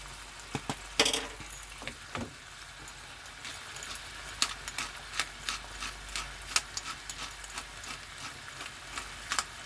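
Shrimp sizzling faintly in butter in a frying pan while a pepper grinder is twisted over it, its grinding giving a run of quick dry clicks in the second half. A sharp clack about a second in.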